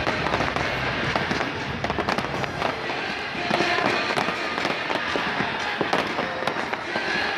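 Aerial fireworks going off in quick succession, many sharp bangs and pops over a dense, continuous rumble.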